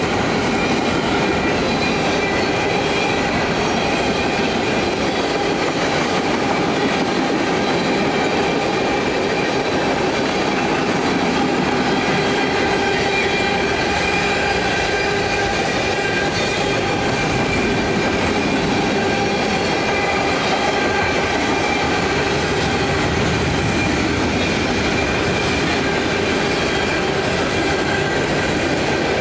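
Freight train cars, covered hoppers and gondolas, rolling steadily past: a continuous rumble and clatter of steel wheels on rail, with steady ringing tones held over it.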